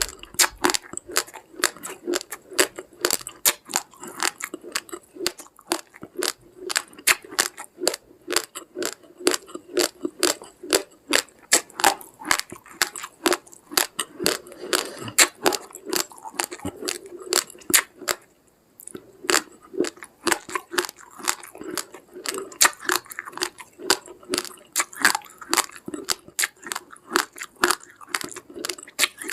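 Raw, uncooked rice grains being chewed, crunching sharply between the teeth: a dense run of crunches, several a second, with a short pause about two-thirds of the way in.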